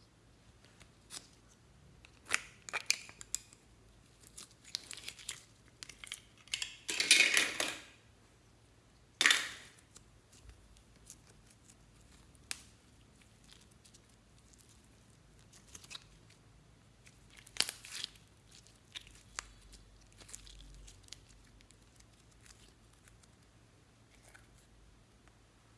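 Hands handling and opening a lollipop-shaped plastic slime container and working the slime out of it: scattered clicks and short rustling noises, loudest in a burst about seven seconds in and a sharp snap just after nine seconds, then quieter, sparser handling sounds.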